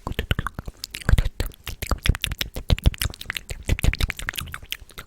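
Close-miked ASMR mouth sounds: a fast run of wet clicks, pops and smacks, several a second, some with a low thump.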